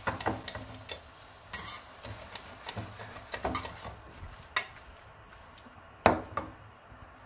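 Metal kitchen tongs tossing spaghetti in a frying pan, clicking and scraping irregularly against the pan, over a light sizzle. The clicks thin out after about four seconds, with one sharp loud click near the end.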